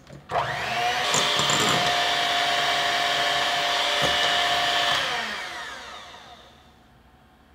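Electric hand mixer running steadily, its beaters whipping egg whites and sugar toward soft peaks in a glass bowl. About five seconds in it is switched off and its whine falls in pitch as the motor spins down.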